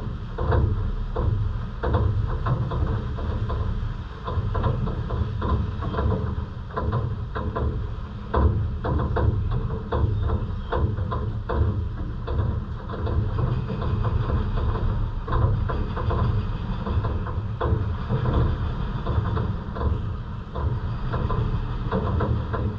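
Heavy rain falling: a dense steady rush with a low rumble underneath and many close drops ticking and splashing.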